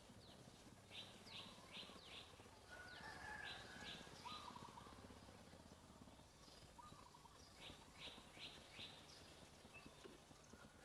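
Faint bird chirps over quiet outdoor ambience: short, high, downward-sweeping chirps come in quick runs of three or four, a few times over, above a low steady hum.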